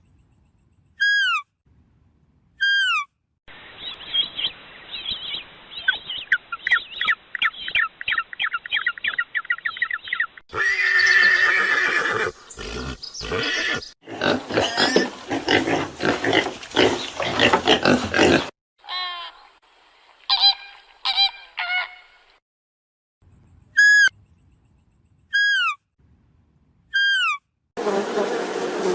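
A string of different animal calls, one after another with short gaps: brief falling whistles, a rhythmic chattering call, a loud noisy stretch and a few pitched calls, with a buzzing sound starting near the end.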